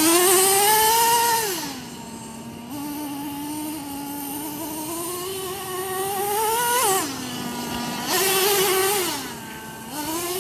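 Traxxas T-Maxx RC monster truck's small nitro engine revving up and down as it is driven: a loud high whine at the start that drops back to idle about two seconds in, a slow climb to a peak near seven seconds, then another short, loud rev about eight seconds in before it falls to idle again and picks up once more near the end.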